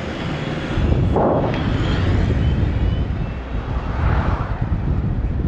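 Road traffic rumble, loud and low, rising about a second in, with two swelling passes like vehicles going by and wind buffeting the microphone.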